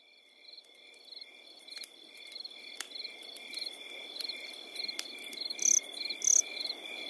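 Night chorus of crickets: a steady high trill with pulsed chirps repeating about two or three times a second, growing louder over the first few seconds. Two louder, higher chirps stand out about six seconds in.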